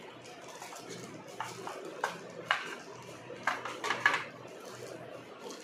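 Cardboard box insert and thin paper wrap handled and peeled apart: scattered rustles and sharp crinkling clicks, thickest about halfway through, over a low steady hum.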